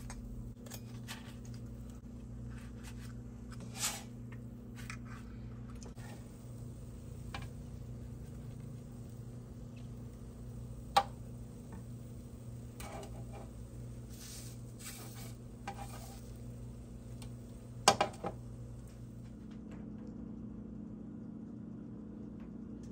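Plastic spatula scraping and tapping on a griddle and a ceramic plate while pancakes and scrambled eggs are lifted and plated. Scattered light clicks, with two sharp clacks about 11 and 18 seconds in, over a steady low hum.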